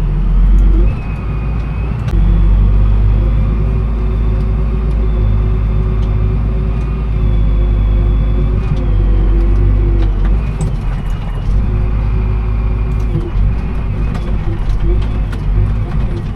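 Farm vehicle engine running steadily under load, a deep rumble with its pitch shifting a little now and then as the engine speed changes.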